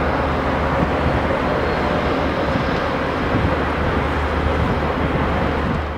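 Amtrak GE P32-8BWH diesel locomotive running as it moves past: a steady low engine drone over a broad, even rumble.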